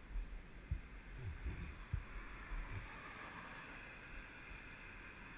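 Low wind rumble on an action camera's microphone, with a few dull thumps in the first three seconds, over a faint steady hiss.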